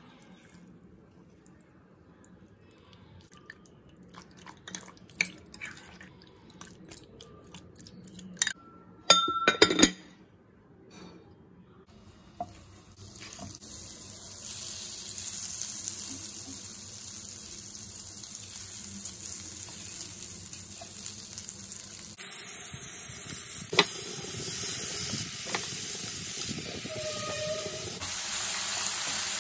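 A few clinks and knocks of utensils and a bowl, then butter melting and sizzling in a nonstick frying pan, a hiss that builds steadily. About two-thirds of the way through it jumps louder into chicken pieces frying, with a spatula knocking and scraping the pan.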